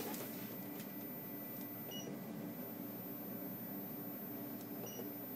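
Ultrasound machine giving a short electronic beep twice, about two seconds in and near the end, over a steady low hum.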